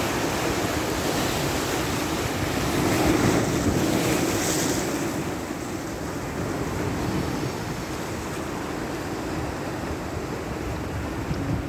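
Rough sea waves breaking and washing over the rocks of a seawall in a continuous surging rush. It swells loudest about three to four seconds in, then settles a little lower.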